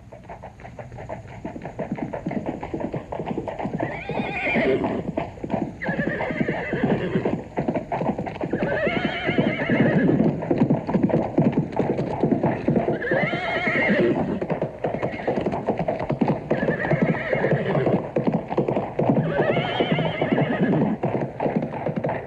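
Horse galloping, with a fast continuous clatter of hoofbeats. The horse neighs about six times, every three to four seconds.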